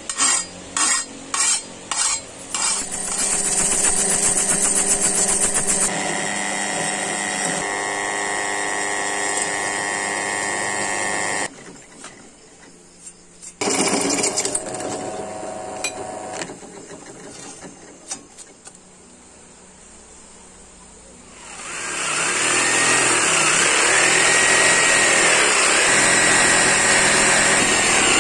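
Hand file scraping along the steel edge of a machete blade, about six strokes in the first few seconds, then a power tool running steadily for several seconds. Later a drill press bores through the metal tang, and near the end a jigsaw cuts through wood, loud and steady with a wavering whine.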